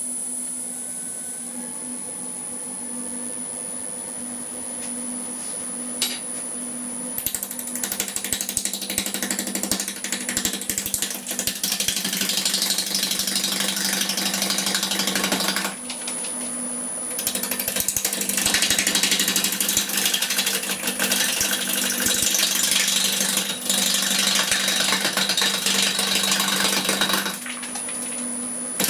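Wood lathe running with a steady hum and faint high whine while a turning gouge begins cutting a rough, out-of-balance blank of cracked green wood. The gouge makes a rapid, rattling scrape as the uneven blank hits the tool on every turn. It comes in two long passes, starting about seven seconds in, with a short break in the middle.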